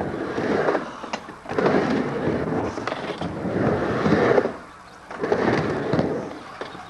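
Skateboard wheels rolling across a backyard skate ramp, a rumble that swells and fades three times as the skater carves back and forth, with a short knock about a second in.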